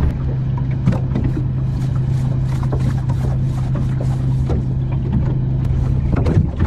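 Sound on a small boat at sea: a steady low hum that stops near the end, over low rumble and scattered short crackles of wind and water.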